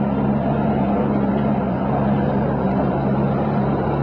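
Boat motor running with a steady, even hum while the boat moves under way.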